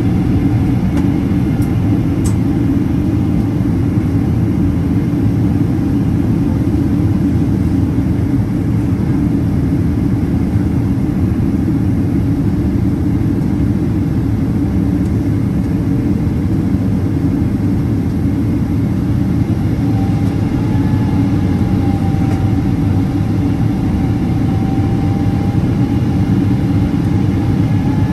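Boeing 777-200ER cabin noise at a window seat beside the engine on approach: a steady low drone from the Rolls-Royce Trent 892 turbofan and rushing airflow. A faint whine wavers gently up and down in pitch in the second half.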